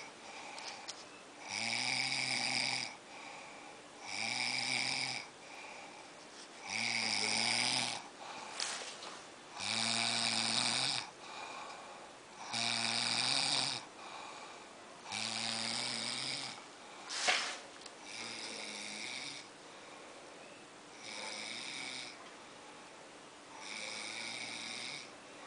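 A sleeping person snoring in a steady rhythm, one snore about every two and a half to three seconds, each lasting about a second and a half. The snores weaken over the last third, and a brief sharp sound comes between them about seventeen seconds in.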